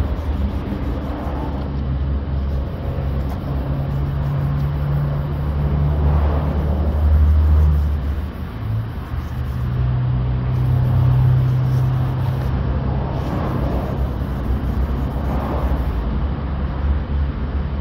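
Steady low rumble of a running vehicle engine, its hum shifting in pitch about halfway through, with faint swishes of wet sandpaper rubbed by hand over car paint.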